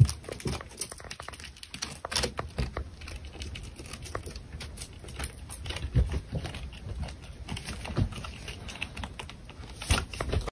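Hamster's claws scratching and clicking on the wall as it climbs: a quick, irregular run of light clicks, with a few louder knocks.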